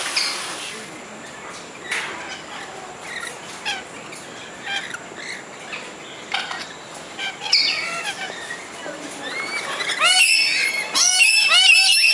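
Birds calling, with scattered short chirps and squawks at first. About ten seconds in, many birds burst into a loud, dense chorus of shrill, overlapping calls.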